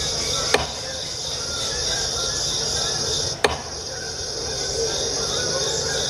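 Sharp chopping knocks of an axe striking wood, about three seconds apart, over a steady high-pitched buzz like crickets.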